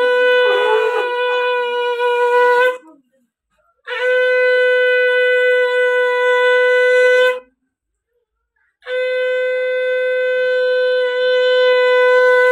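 Conch shell (shankha) blown in three long, steady, single-pitched blasts of about three to four seconds each, with about a second's silence between them.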